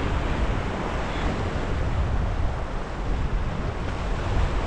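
Ocean surf washing in over the rocks, with wind rumbling on the microphone.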